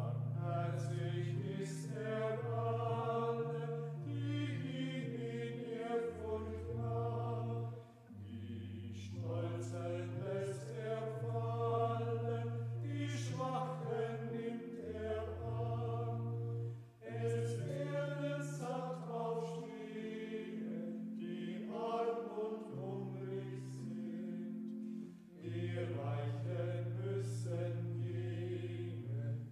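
A church hymn sung with organ accompaniment. The singing comes in phrases of about eight seconds with short breaks between them, over low, steadily held chords.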